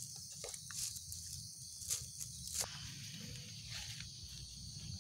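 Insects chirring steadily as a high outdoor chorus, with a few brief rustles and clicks about one, two and two and a half seconds in.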